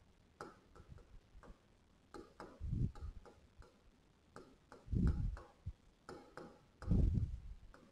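A pen tip clicking and tapping irregularly against a writing board during handwriting, with three dull knocks.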